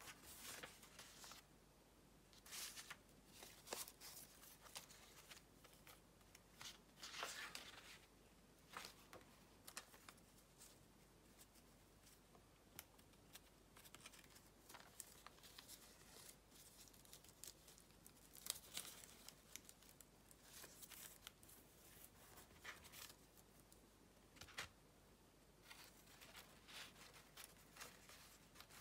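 Soft paper handling: a lace paper doily and old book pages being slid, lifted and pressed flat, heard as short, irregular rustles and crinkles with quiet gaps between them.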